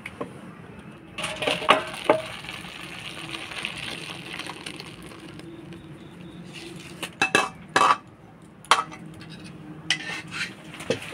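Metal utensils clinking and clattering against pots and dishes: a few sharp clinks about a second in, then a quicker run of clinks around seven seconds and scattered knocks near the end.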